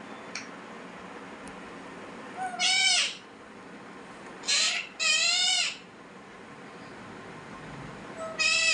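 Pet parakeet calling: four drawn-out squawks, each rising then falling in pitch, the first a few seconds in, two close together in the middle and the last near the end.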